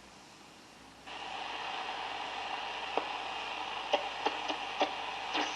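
Hallicrafters SX-100 shortwave receiver's speaker hissing with band noise while tuned on band 4; about a second in the hiss jumps louder, a few sharp crackles come through, and a station's voice begins to come in near the end.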